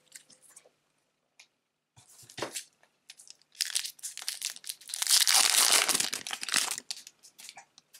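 Plastic wrapper of a Disney Lorcana booster pack being torn open and crinkled: a short rustle about two seconds in, then a longer stretch of tearing and crinkling from about three and a half seconds, loudest near the middle and dying away about a second before the end.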